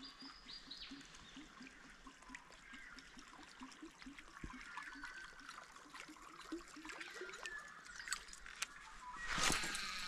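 Early-morning birdsong: many short chirps, over a low call repeating about four times a second. A brief rush of noise near the end.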